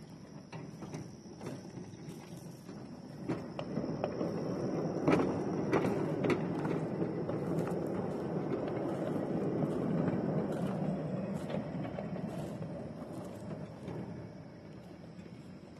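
Backyard ride-on railroad cars rolling along the track: steel wheels clicking over rail joints, over a rolling rumble that swells from about four seconds in and fades near the end.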